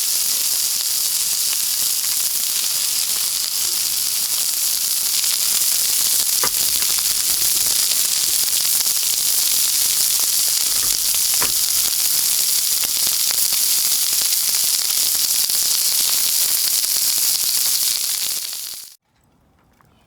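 Food sizzling steadily on a hot grill over a campfire, with a couple of faint pops. It cuts off abruptly just before the end.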